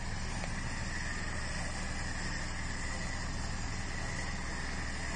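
Off-road 4x4's engine running steadily at an even pitch, with a steady high whine over it.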